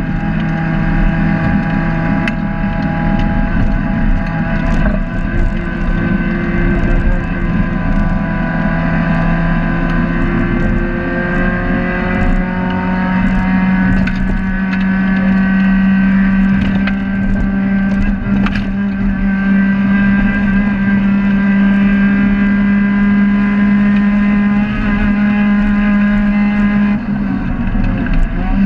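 Dodge Neon race car's four-cylinder engine pulling hard at high revs, heard from inside the caged cabin, its pitch climbing slowly and steadily through one long stretch of throttle. Near the end the pitch falls away.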